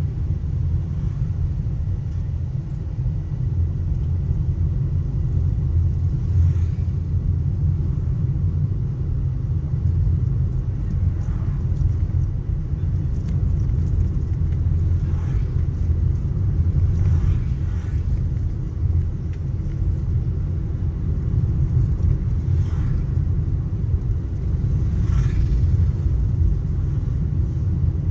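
Steady low rumble of a car's engine and tyres on the road, heard from inside the moving car, with a few faint brief swishes of other traffic going by.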